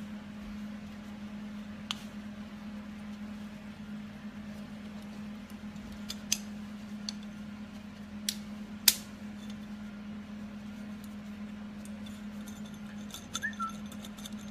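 A handful of sharp metal clicks as steel steering linkage parts are handled and fitted together by hand, the loudest about nine seconds in, with a brief squeak near the end, over a steady low hum.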